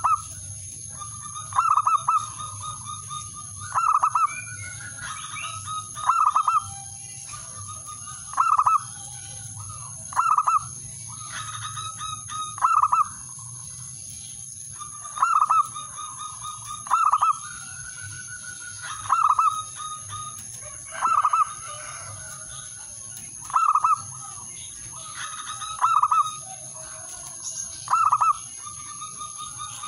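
Male zebra dove (perkutut) singing its cooing song over and over, about every two seconds. Each phrase is a rolling trill ending in a louder clipped note. It is a male's call to challenge rival males.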